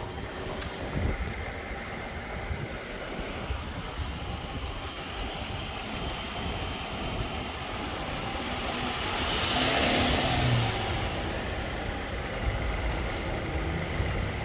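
A car engine running steadily, with a louder hiss that swells and fades about ten seconds in.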